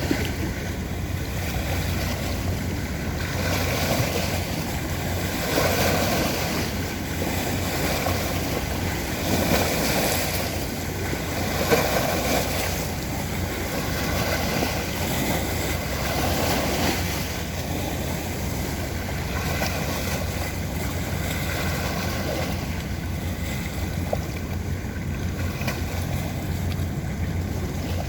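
Steady low rumble of a passing boat, with its wake washing against the riverbank in surges about every two seconds, and some wind on the microphone.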